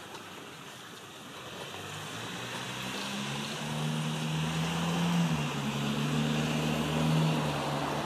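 A motor vehicle's engine hum grows steadily louder from about two seconds in and then holds, over a steady outdoor hiss.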